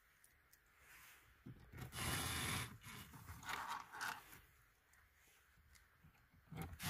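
Cordless drill-driver running in a few short bursts as it drives screws back into a car's dashboard radio bracket, with plastic trim scraping and rubbing between bursts.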